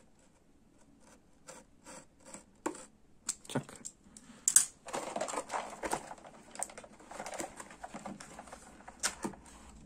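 A cardboard toy box and its plastic packaging being handled and pried open: scattered clicks and taps, then denser rustling and crinkling from about halfway, with one sharp click just before it.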